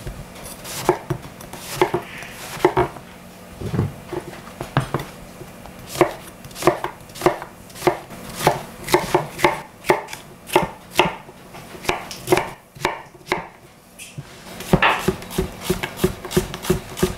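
A chef's knife cutting through aubergine on a green plastic cutting board, a sharp knock each time the blade meets the board, about two cuts a second. After a short pause a little past the middle, a quicker run of cuts near the end as a red onion is sliced.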